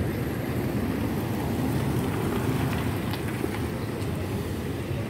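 Road traffic passing on a wet street: a steady low rumble of vehicles driving by.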